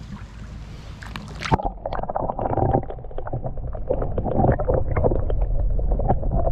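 Camera plunging under the surface of clear spring water about a second and a half in. The sound turns muffled and dull, with underwater sloshing, gurgling and crackling that grows louder.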